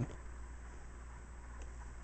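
Quiet room tone: a steady low hum under faint hiss, with one faint click about one and a half seconds in.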